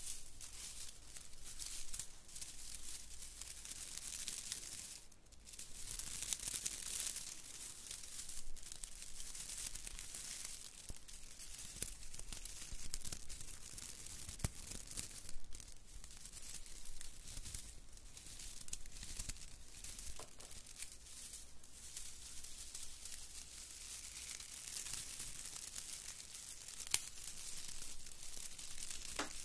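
Pine branches handled close to the microphones, their needles rubbed and brushed together in a continuous bristly rustle. The rustle dips briefly about five seconds in, and there is a single sharp tick near the end.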